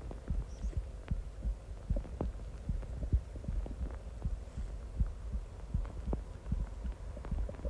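Stomach growling and gurgling: a quick, irregular run of short low pops over a low rumble.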